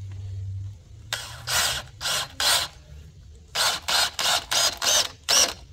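Cordless drill driving screws into wooden boards: the motor runs steadily for about a second, then comes in short bursts, four and then six, each a fraction of a second, as the screws are driven home.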